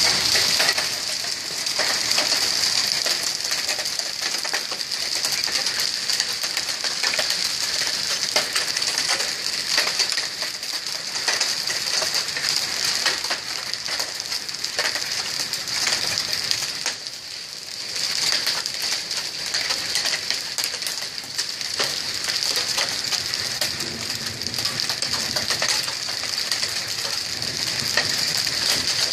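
Small hail and rain falling on a concrete driveway: a steady dense hiss packed with sharp ticks of hailstones striking, easing briefly about halfway through.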